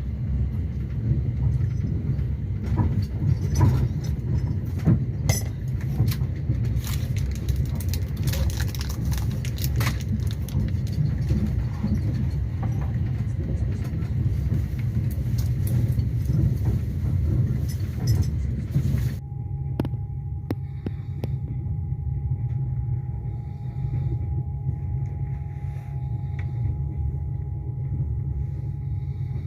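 Passenger train in motion: a steady low rumble with rattling and knocks. About two-thirds of the way through, the rattling drops away, leaving the rumble and a faint steady whine.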